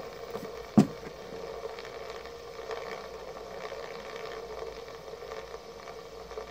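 Two fidget spinners spinning down in a spin test, giving a faint steady whir, with one sharp knock about a second in.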